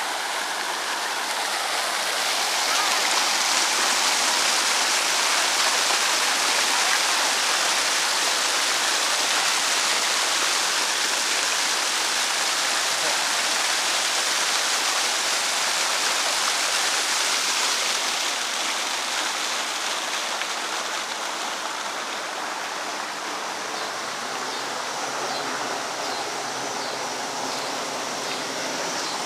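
Running water making a steady rush, easing a little in the last third.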